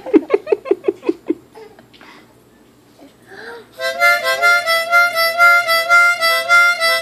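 Harmonica playing: a quick run of short choppy notes, then after a pause of about two seconds, steady rhythmic chords rocking back and forth between two notes, about three a second.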